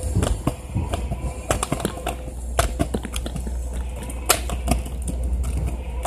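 Scooter wheels rolling on a concrete sidewalk: a steady low rumble with irregular clicks and knocks as the wheels cross cracks and slab joints.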